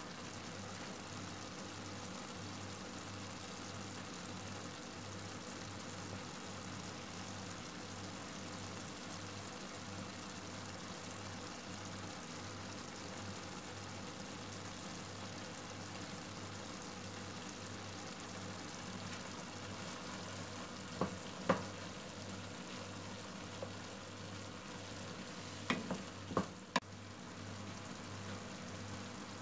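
Minced beef, onion and garlic sizzling steadily as they fry in a non-stick pan. Two sharp knocks come about two-thirds of the way through, and three more follow near the end.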